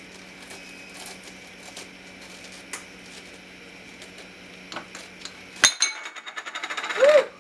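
Metal spoon scraping seeds and stringy pulp out of a halved raw spaghetti squash: faint scrapes and light clicks at first, then a sharp clink about five and a half seconds in and a quick run of clicks.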